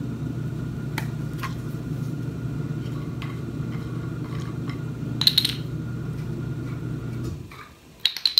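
Washing machine running with a steady low hum that stops near the end. Over it come light clicks and clinks of plastic and metal dumbbell parts being handled, the connecting bar and screw collars, with a brief cluster about five seconds in and more right at the end.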